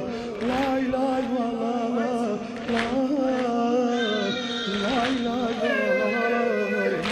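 A man's solo voice singing a mournful Azerbaijani mersiye (religious lament) into a microphone, holding long, wavering, ornamented notes.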